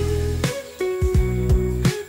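Background music from a Hindi-language pop song: held melodic notes over a bass line and a drum beat, between sung lines.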